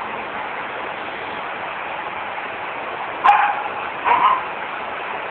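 A young dog barks twice, about a second apart, past the middle, over a steady background hiss.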